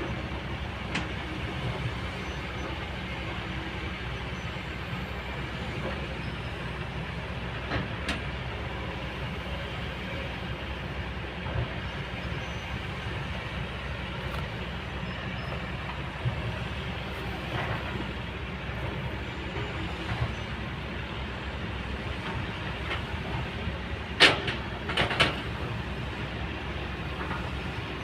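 Kobelco excavator's diesel engine running steadily under work, with a few brief knocks and, near the end, one loud sharp knock followed quickly by two or three more.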